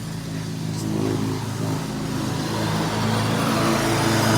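Riding lawn mower engine running steadily, growing louder as it draws closer.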